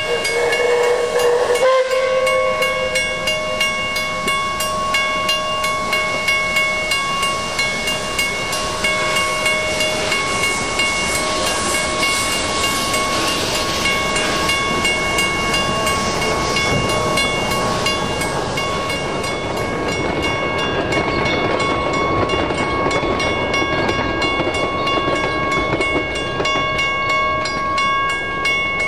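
Puffing Billy's NA class narrow-gauge steam locomotive 12A working along with regular exhaust beats and steady high tones over them. A whistle sounds briefly at the start and breaks off abruptly about two seconds in.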